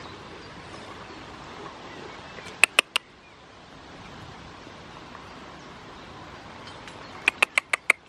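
Sharp, short clicks: three in quick succession about two and a half seconds in, then a quicker run of five near the end, over a faint steady outdoor background.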